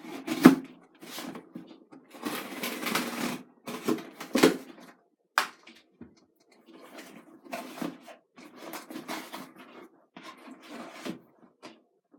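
Packaging being handled and opened by hand: irregular rustling, scraping and tearing with sharp knocks. The loudest knock comes about half a second in.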